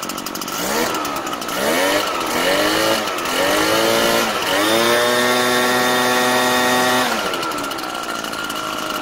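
Zenoah backpack blower's two-stroke engine blipped up from idle four times, then held at high speed for about two seconds before dropping back to idle. It revs up cleanly without stalling, the sign that the rebuilt carburetor has cured its stall on the throttle.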